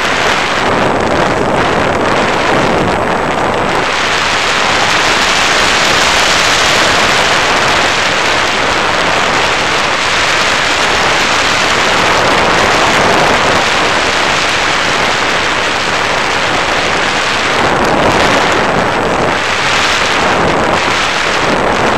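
Loud wind rushing over the microphone of a camera riding on an FPV Raptor model plane in flight, a dense steady hiss that grows fuller about four seconds in and wavers near the end.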